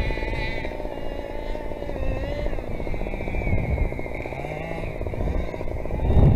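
Small two-stroke petrol engine of a large-scale RC car running, its pitch wavering as the throttle is worked, with a brief rising rev a couple of seconds in. Low wind rumble on the microphone grows near the end.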